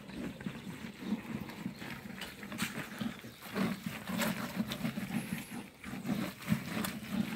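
Wet grated green corn being rubbed and pressed by hand through a mesh sieve: an irregular run of soft squishing and scraping strokes.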